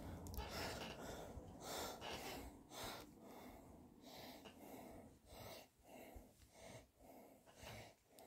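Very faint breathing close to the microphone, with soft, irregular handling noises as small plastic toy figures are set down one by one on a fleece blanket.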